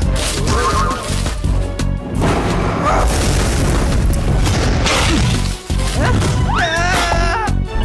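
Action cartoon soundtrack: loud background music with heavy booms and impact sound effects, and a brief cluster of wavering pitched glides about seven seconds in.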